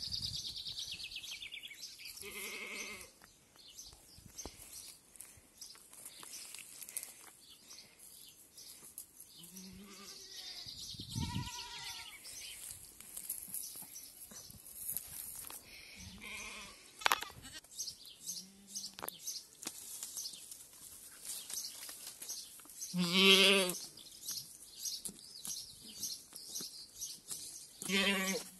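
Goat kids bleating: short calls spaced a few seconds apart, the loudest about two-thirds of the way through and another near the end.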